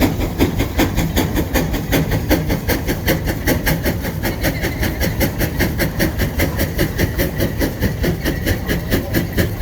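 Case steam traction engine working hard under a heavy towed load, its exhaust beating steadily at about four chuffs a second.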